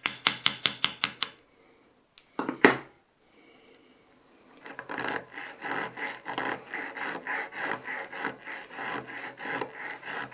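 A hand file rasping on metal in quick, even back-and-forth strokes, taking material off the sides of a pistol sight that is still too tight for the slide's dovetail. Before the filing starts there is a quick run of sharp clicks and a single louder knock.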